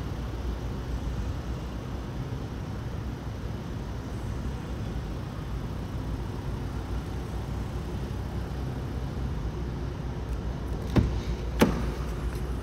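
Two sharp clicks near the end as the driver's door of a 2019 Range Rover Sport is unlatched and swung open, over a steady low rumble.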